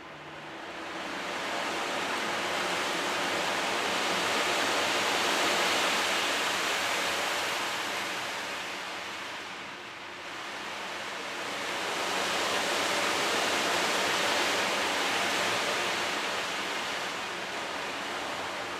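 A surf-like rushing noise, like waves washing in, swelling and fading twice in slow waves. A faint low bowl tone dies away at the very start.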